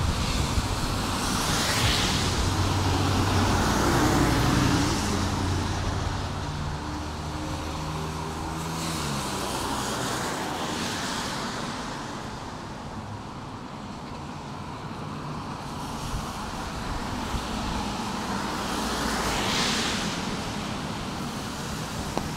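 Street traffic on a wet road: cars pass with tyres hissing on the wet pavement, swelling once about two seconds in and again near the end. A vehicle's engine hum is heard through the first half, falling in pitch and fading about nine seconds in.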